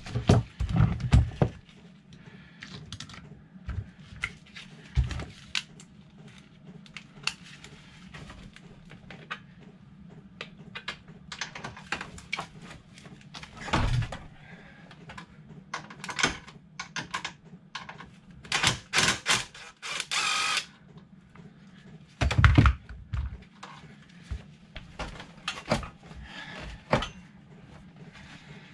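Tools and bolts clicking and knocking as a motorcycle's radiator mounting bolts are undone, with a cordless power tool running in short bursts about two-thirds of the way through, the longest lasting about two seconds. A low steady hum runs underneath.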